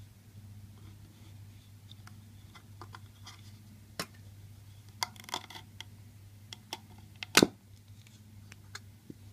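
Scattered clicks and light knocks of a Mikiphone portable phonograph's round metal case pieces being picked up and handled, with a quick cluster of clicks about five seconds in and one louder clack about seven seconds in.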